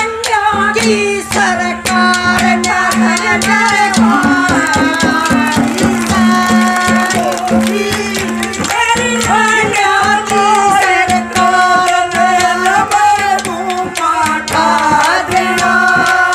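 A woman singing a Haryanvi folk song into a microphone, holding long notes that glide between pitches. It is amplified, over drum accompaniment with regular strokes and a steady low held note.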